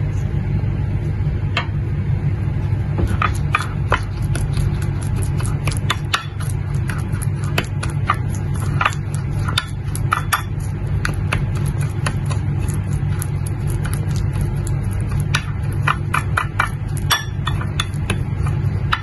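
Metal spoon clinking and scraping against a small glass bowl while stirring an oily paste of castor oil and ground date pits, in irregular sharp taps throughout, over a steady low hum.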